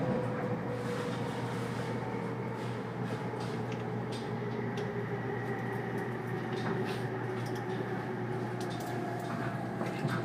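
Running noise inside a 485-series electric train car: a steady rumble with a motor and gear whine that falls slowly in pitch as the train slows, and a few faint clicks.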